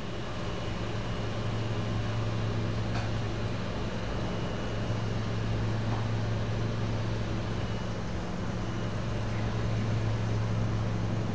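Sinker EDM machine running during a burn, its electrode submerged in dielectric oil: a steady low hum with an even hiss over it.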